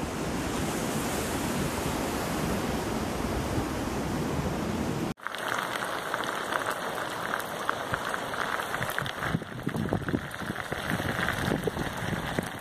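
Steady noise of storm wind and surf; about five seconds in it cuts abruptly to heavy rain, with many close drops pattering.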